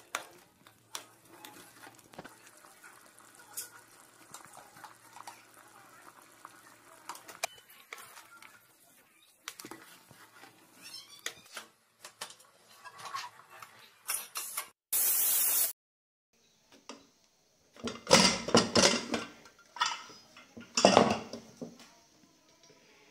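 Metal spoon scraping and clinking in an aluminium pressure cooker, then the cooker's lid being fitted and locked. About two-thirds of the way in there is a short, very loud hiss, and near the end a few loud clattering sounds.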